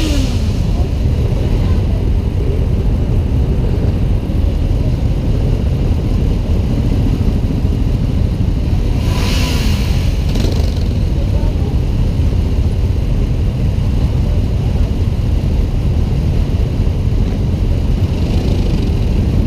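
A column of motorcycles and scooters running at idle, a steady low rumble. One engine revs briefly, rising and falling, about nine to ten seconds in.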